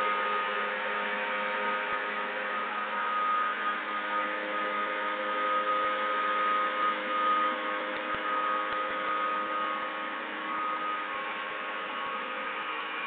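Small engine of a motorised knapsack sprayer running steadily at a constant pitch, a steady hum over a hiss.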